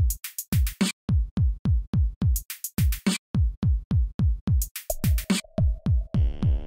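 Electronic intro music: a drum-machine beat with a deep kick about three times a second and sharp high hits between, joined by a held synth note about five seconds in.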